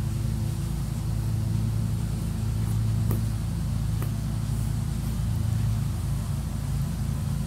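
Steady low hum of a running motor or engine, unchanging throughout, with a couple of faint clicks about three and four seconds in.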